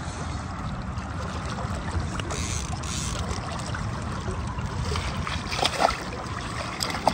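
Steady low rumble and water noise around a boat on a river, with two or three sharp clicks near the end.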